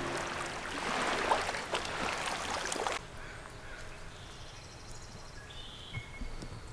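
Small waves lapping and splashing along a rocky shoreline. After about three seconds it cuts to a quieter woodland background with a few faint bird chirps.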